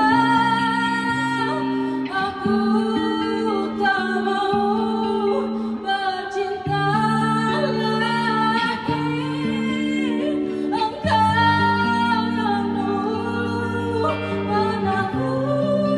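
A singer's voice carrying a sung melody in long held notes over acoustic instrumental accompaniment, with bass notes changing every second or two.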